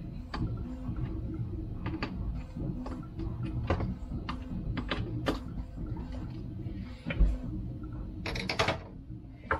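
Scattered small clicks and knocks of tools and plastic parts being handled while a wheel is fitted to a radio-controlled car, with a short dense rattle near the end.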